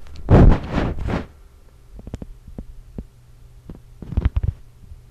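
Handling noise from gloved hands picking up an LCD flex cable and a screwdriver on a wooden table: a loud rustle about half a second in, then scattered light clicks and taps, with a steady low hum throughout.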